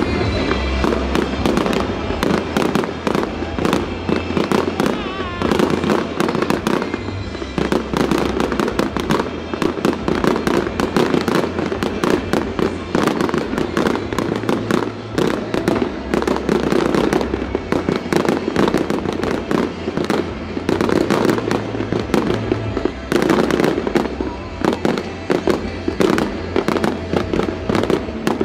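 Fireworks display: a dense, continuous barrage of cracks, bangs and crackling as shells burst overhead. Music plays underneath at the very start and fades out in the first second or so.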